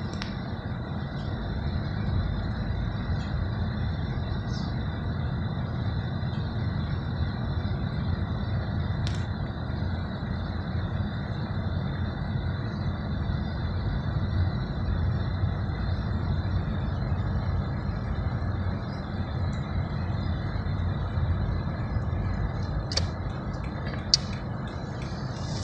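Steady low rumble of a car driving, road and engine noise heard from inside the cabin, with a few short sharp clicks near the end.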